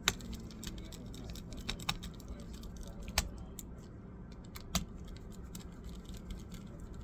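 Irregular light clicks and taps on a Dell laptop, like keys being pressed, with a few sharper clicks scattered through, over a faint low hum.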